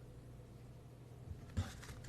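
Quiet room tone with a faint steady low hum, and two soft taps near the end.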